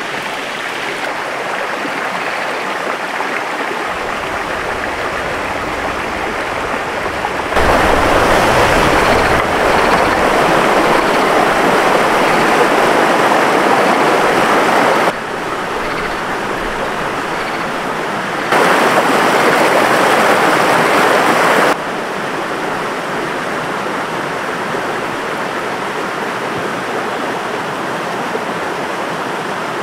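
Stream water rushing steadily. It turns abruptly louder for two stretches, one of about seven seconds a quarter of the way in and a shorter one of about three seconds two-thirds in, each starting and stopping suddenly.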